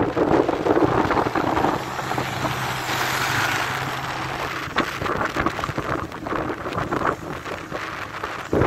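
Wind buffeting the microphone on a moving motorcycle, with the bike's engine humming steadily underneath.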